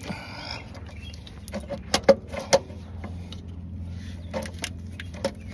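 Metal hand tools clinking and scraping against the engine while working at a starter mounting bolt: a short scrape at the start, then a handful of sharp clinks, over a steady low hum.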